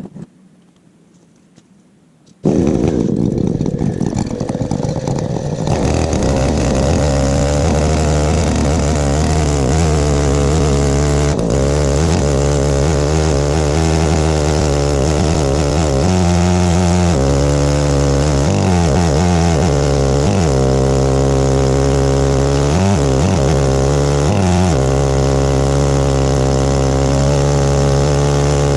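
Stihl 070-clone 105 cc two-stroke chainsaw on an Alaskan chainsaw mill, coming in suddenly about two and a half seconds in and then running hard while ripping a pine log lengthwise. Its pitch dips several times as the chain loads up in the cut.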